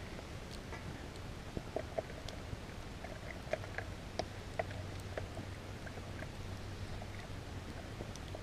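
Wood campfire crackling, with scattered small pops at uneven intervals over a steady low rumble.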